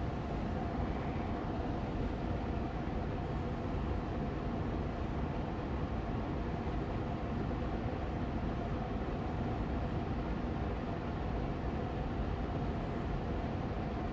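Austin Air Allergy Machine air purifier fan running steadily on medium speed: an even rush of air with a faint steady hum.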